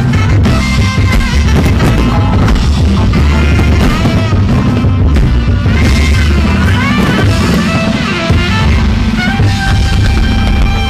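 Loud rock-style show music with a heavy bass beat and a lead line sliding up and down in pitch.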